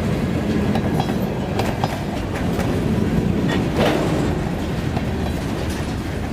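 Freight train tank cars rolling past slowly, their wheels clicking over rail joints above a steady rumble, with a brief wheel squeal a little past halfway.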